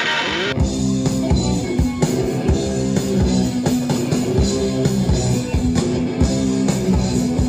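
A distorted electric guitar plays alone for about half a second. Then a full rock band takes over, with drums hitting steadily under bass and distorted guitar.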